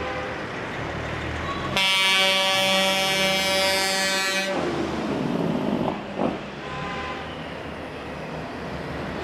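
Semi truck's air horn blown in one long blast of about three seconds, over the steady rumble of the diesel tractor-trailer rolling past; rougher engine noise follows briefly after the horn stops.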